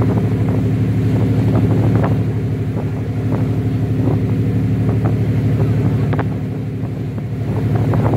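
A boat's engine running steadily, a low even drone, over the rushing water of its wake.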